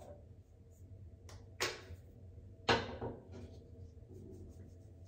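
Small items being handled: two sharp clicks or taps about a second apart, with a few fainter ticks after.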